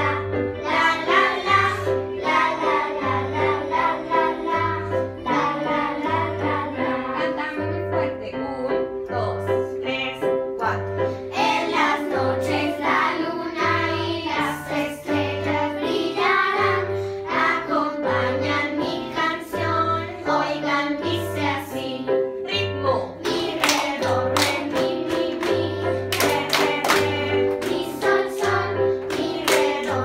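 A group of young children singing a children's song together over electronic keyboard accompaniment with a steady, repeating bass pattern. For the last several seconds the children clap in time.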